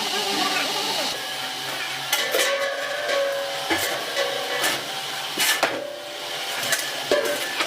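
Metal workshop noise: a steady hiss in the first second, then a string of sharp metallic clanks, about six, each with a short ring.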